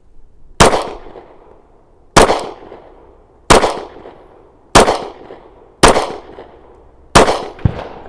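Glock 36 subcompact pistol firing six .45 ACP shots, slow aimed fire about one to one and a half seconds apart, emptying its six-round magazine. A fainter knock follows just after the last shot.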